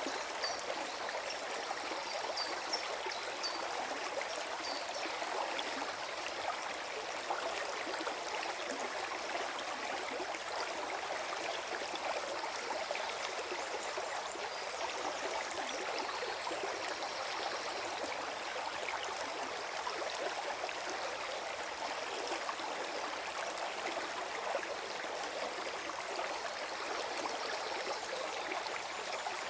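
Small forest stream flowing with a steady gurgling rush of water.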